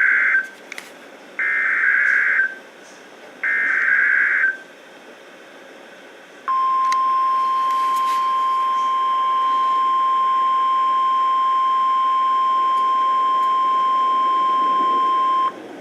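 NOAA Weather Radio emergency alert opening: three short, buzzy bursts of the SAME digital header, about a second each. Then comes the steady 1050 Hz warning alarm tone, held for about nine seconds. This marks the broadcast of a warning, here a severe thunderstorm warning.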